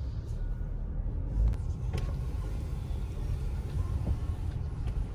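Low, steady rumble of a Subaru's engine and tyres heard from inside the cabin as the car moves slowly up a drive-thru lane, with a few faint clicks.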